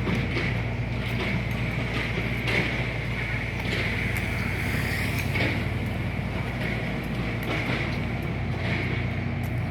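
Steady engine hum of motor vehicles or roadside machinery running, with light regular footsteps ticking every half second to a second.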